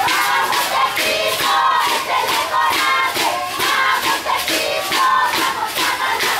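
A group of voices chanting and shouting together in a regular rhythm: a football team's cheer from the sideline.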